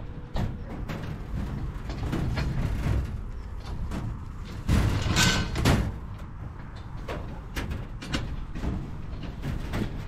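Lambs packed in a metal-sided handling pen shuffling and knocking against the galvanised sheeting, with scattered clicks and knocks and a louder scuffle about five seconds in.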